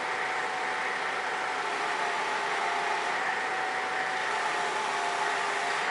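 Yale forklift running while its hydraulic rotator attachment turns the clamp forks: a steady machine hum and hiss with a high, steady whine whose pitch dips slightly a couple of times.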